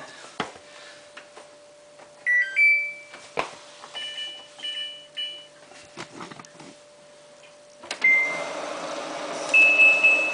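Samsung WF8804RPA washing machine's control panel beeping as buttons are pressed to enter service test mode: a two-tone beep, then three short beeps about half a second apart, with a few button clicks. About eight seconds in, a steady rushing of water filling the drum starts, with more beeps over it.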